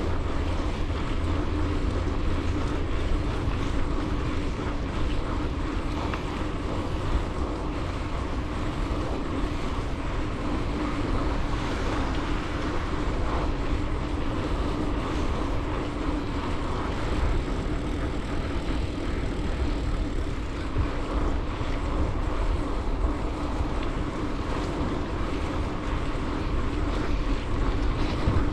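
Wind buffeting the microphone and the tyres rolling on a paved path while a bicycle is ridden at a steady pace, a continuous low rumble that doesn't change.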